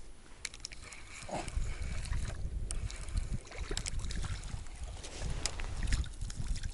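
Wind buffeting the microphone as a steady low rumble, with scattered small clicks and knocks of handling tackle.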